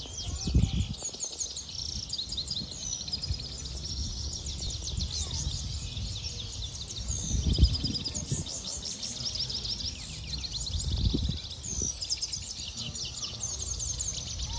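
A finch singing a continuous, fast twittering song of rapid trills and chirps, with a few dull low thumps.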